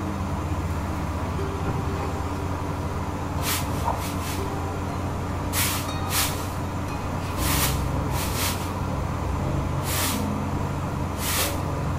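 A steady low hum, with about ten short hissing sounds at uneven intervals from a few seconds in.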